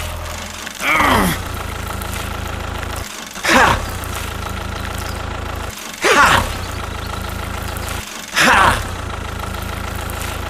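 Tractor engine idling sound, a steady low drone, looped and cut about every two and a half seconds by a short, loud falling whoop.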